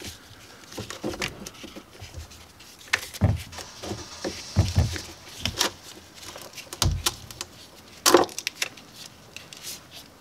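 Pliers working a battery cable end: scattered metallic clicks, clinks and light knocks, the sharpest click about eight seconds in.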